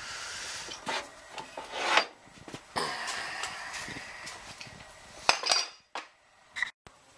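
Handling noise from a handheld camera being carried: rubbing and scraping with several sharp knocks and clunks, cutting off abruptly near the end.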